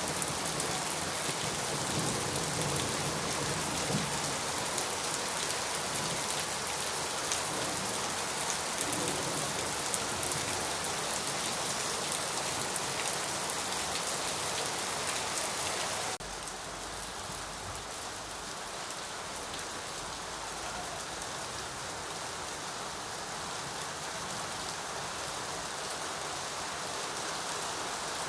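Steady rain falling, with scattered individual drops. A little over halfway through it switches abruptly to a quieter, softer rain.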